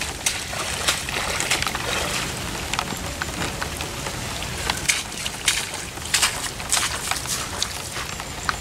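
Rubber boots splashing and sloshing through flooded, waterlogged grass, over steady rain and wind with many small sharp ticks.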